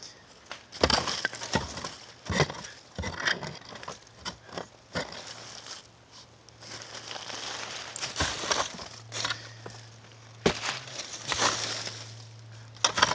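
A digging tool scraping and jabbing into soil full of broken glass and brick, with irregular crunches and scrapes and the odd clink of glass.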